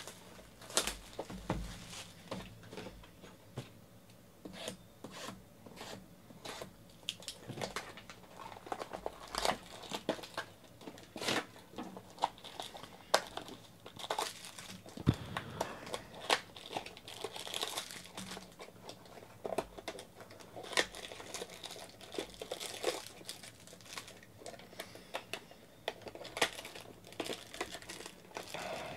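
Hands opening a sealed box of baseball trading cards: the wrapper and cardboard packaging crinkling and tearing, with a steady run of irregular rustles and clicks as the inner boxes and cards are handled.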